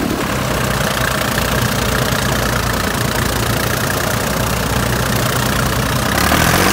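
Eicher 242 tractor's two-cylinder diesel engine running steadily at low speed with a knocking beat. The engine grows louder near the end as it is revved up.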